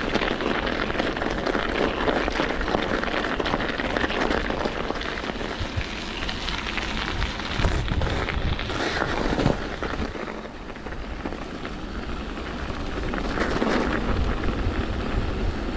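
Mountain bike on Schwalbe Ice Spiker studded tyres rolling over snow and ice: a steady crackling, crunching noise with a low rumble underneath, dipping briefly about ten seconds in.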